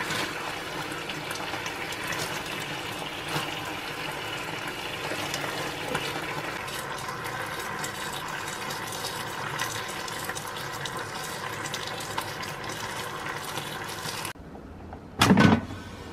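Pork neck steaks sizzling in teriyaki sauce in a frying pan, a steady crackling sizzle. It cuts off sharply near the end, and a second later comes a short loud thump.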